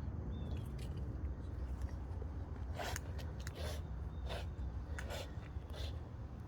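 Pit bull puppy breathing hard: five short, noisy breaths a little under a second apart, starting about halfway in, over a steady low rumble.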